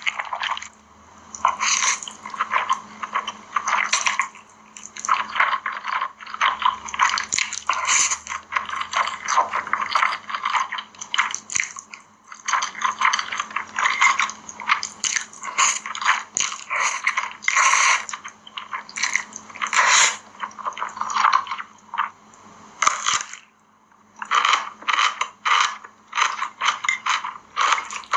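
Eating spicy cheese instant noodles: wet chewing and mouth sounds in quick runs of clicks and crackles, broken by short pauses.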